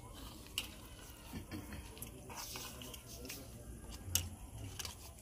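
Spoons clinking and scraping against ceramic plates and serving bowls as food is dished out and eaten, with a few sharp clinks.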